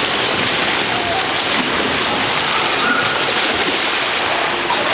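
Steady rushing and splashing of water from a water slide's flow and the pool churned by children landing in it, with a few faint children's shouts.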